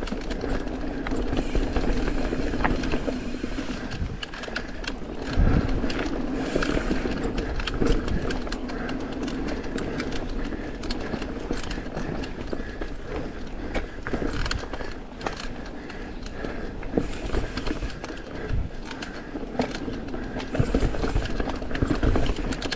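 Mountain bike ridden fast down a dirt singletrack: a steady rush of tyres over dirt and leaves, with frequent rattles and knocks from the bike over bumps and a few harder jolts.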